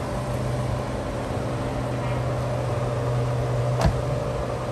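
A steady low machine hum, with one sharp click a little under four seconds in.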